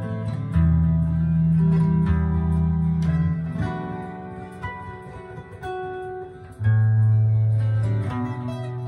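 Acoustic guitar played solo: plucked chords and single notes ringing out, with deep bass notes struck about half a second in and again about two-thirds of the way through.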